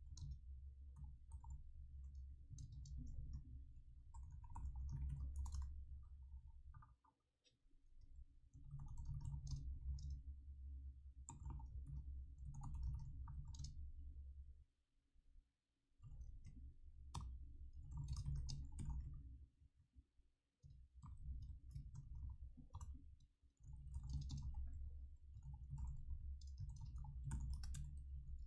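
Computer keyboard typing in four long stretches of rapid key clicks, with a dull low thumping under the clicks and short pauses between the stretches.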